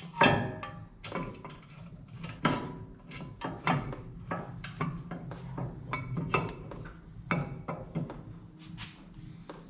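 Irregular metal clinks and knocks of hand work on a car's front brake hub: caliper bracket bolts being refitted behind the rotor, then a brake caliper being offered up against the rotor near the end.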